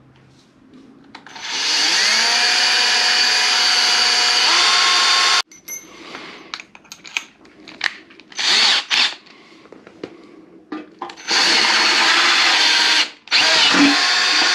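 Cordless drill drilling a hole in a motorcycle's front fender, running in bursts: a long run of about four seconds that winds up in pitch and cuts off suddenly, a few short trigger pulls, then two more runs near the end.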